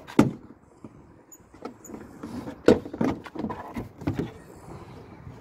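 Plastic retaining clips of a Ford Fiesta Mk6's lift gate trim panel popping loose as the panel is pried off. Two sharp snaps, the first just after the start and the second about two and a half seconds in, followed by a run of smaller clicks and rattles of the loosening plastic panel.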